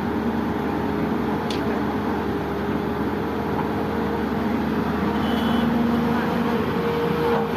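Heavy diesel machinery running steadily, its engine holding a constant note and growing a little louder about five seconds in.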